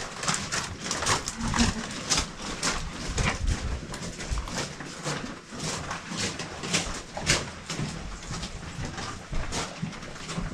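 Footsteps crunching on a gritty stone floor at walking pace, about two steps a second, with some handling rustle from the handheld camera.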